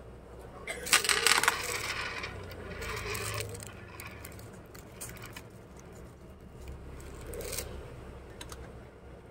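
Steel parts of a manual ID card die cutter being handled: a jangle of metal clinks about a second in, a scrape around three seconds, and another short clatter near the end.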